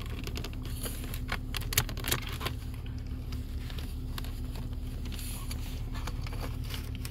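Plastic clicks and scrapes as a BMW E39's climate control panel is worked loose from the centre console, the sharpest snap a little under two seconds in, over a steady low hum.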